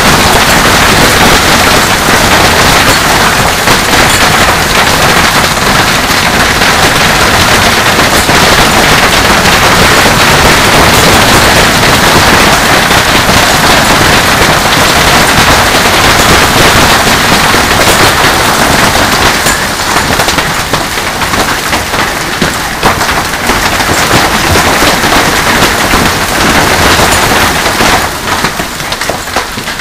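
Heavy hail pelting a swimming pool, a patio and a yard: a loud, dense clatter of countless hailstones striking. It thins to more separate strikes after about twenty seconds and eases near the end.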